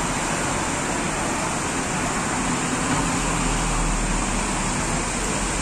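Steady rush of a roundabout fountain's spraying water jets mixed with road traffic, with a car passing about three to five seconds in.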